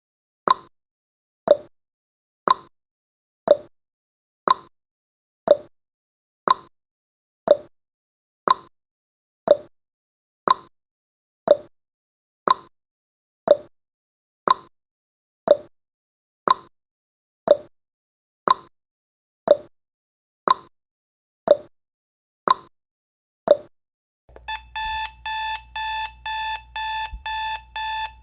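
Countdown timer's clock ticking once a second, each tick short and falling slightly in pitch. At zero, near the end, an alarm-clock beeping starts: a rapid run of high beeps, about three a second.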